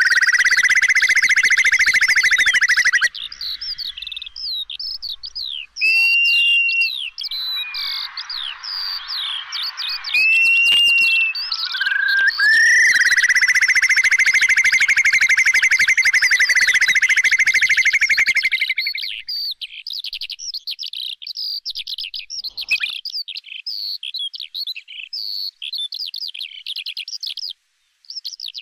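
Curlew calling: a rising note that runs into a long, fast bubbling trill, heard twice, with many short high chirps and whistles around it.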